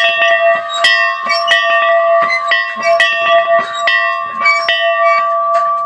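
A victory bell rung loudly, its clapper striking about twice a second in an uneven rhythm, with one ringing tone carrying on between strikes.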